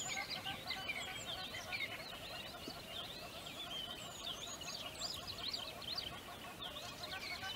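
Dense chorus of many birds chirping and twittering, with overlapping calls and no single song standing out; it cuts off abruptly at the end.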